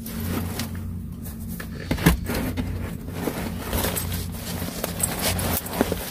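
Things being handled and knocked about, with scattered clicks and one sharper knock about two seconds in, over a steady low hum.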